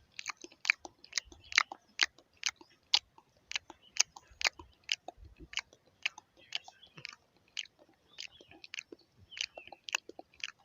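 A person chewing food noisily with the mouth open, a steady run of sharp, crisp crunches and wet clicks, about two to three a second.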